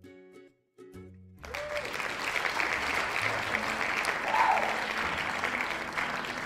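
A light plucked-string jingle plays a few notes. About a second and a half in, loud applause and cheering breaks out and carries on over the music.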